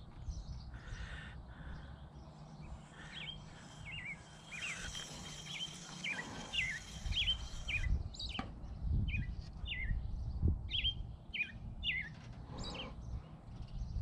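A small bird chirping over and over: short falling notes, about two a second, with a brief break midway. Low rustling and a couple of soft knocks from handling lie underneath.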